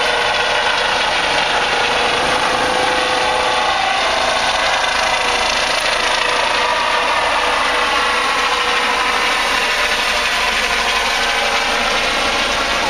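Medevac helicopter flying low overhead just after lifting off: loud, steady rotor and turbine noise with a dense whine.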